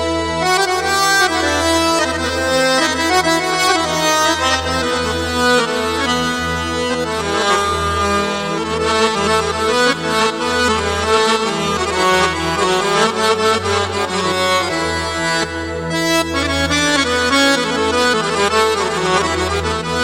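Sampled accordion voice on a Yamaha PSR-A5000 arranger keyboard playing an Arabic-style melody, with low bass notes sounding beneath it.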